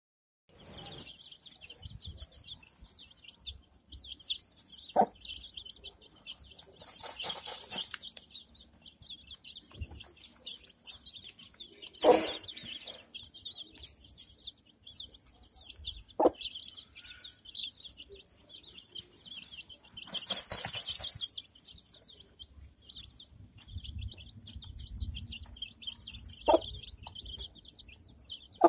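Chicks peeping continuously in quick high chirps around a brooding hen, with a few short low clucks from the hen. Twice, for about a second each, a hissy rustle of dry dirt and feathers as the hen dust-bathes.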